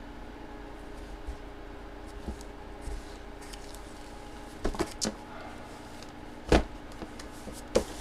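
Steady electrical hum of room equipment, with a few sharp clicks in the second half, the loudest about six and a half seconds in.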